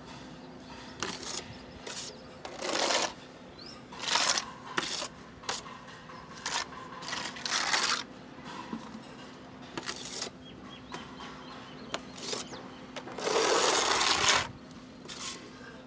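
Trowel scraping wall-texture putty off a hawk and spreading it across a wall in irregular strokes about every second, with a few short clicks of metal on metal; the longest and loudest stroke comes near the end.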